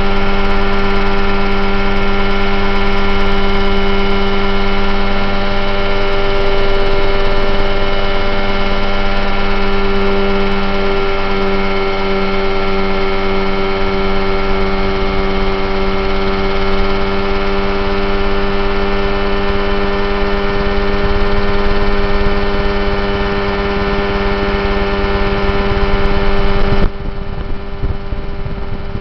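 Mosquito ultralight helicopter's engine and rotor running at a steady, loud drone, heard from on board as it lifts off and climbs over fields. The level drops suddenly near the end.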